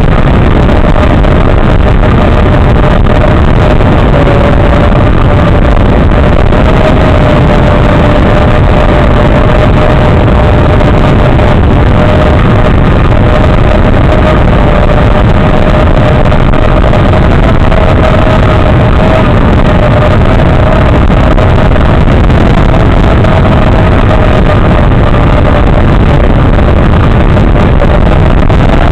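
FPV quadcopter's motors running steadily, a slightly wavering whine over a heavy rushing hiss.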